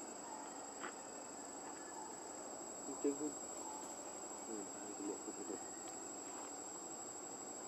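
Steady high drone of insects, a thin continuous tone. Short, faint voice-like sounds rise over it about three seconds in and a few more around five seconds.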